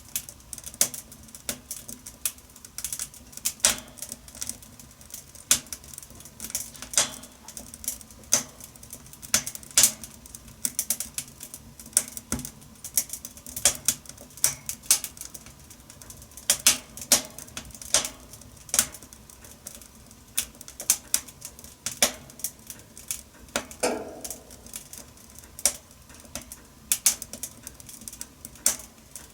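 Wood fire crackling in a wood-burning stove: irregular sharp snaps and pops, several a second, at uneven spacing.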